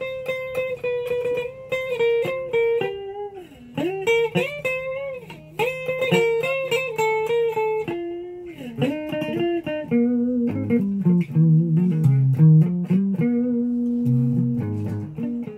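Electric guitar with two humbucker pickups played as a single-note melodic line with string bends, higher notes at first, then moving down to lower notes about halfway through.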